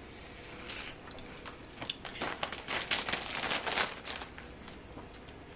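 Cheese-flavoured Cheetos being bitten and chewed close by: a run of dry crisp crunches, densest from about two to four seconds in.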